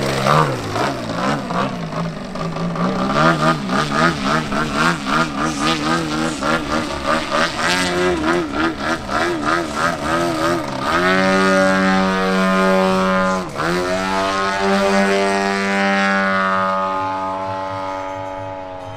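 Engine and propeller of a large aerobatic radio-controlled model plane in flight. For the first ten seconds or so the pitch wavers rapidly up and down. Then it settles into a steady high note, dips briefly about two-thirds of the way through, and fades near the end as the plane climbs away.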